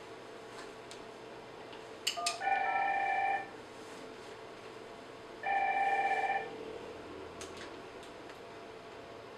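Telephone ringing twice with an electronic ring, each ring about a second long, about three seconds apart, after a couple of sharp clicks. A few faint clicks follow near the end.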